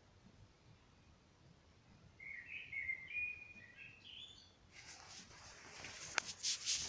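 A small songbird sings a short warbling phrase of quick high notes about two seconds in. From about five seconds in, a rustling, crackling noise with sharp clicks takes over.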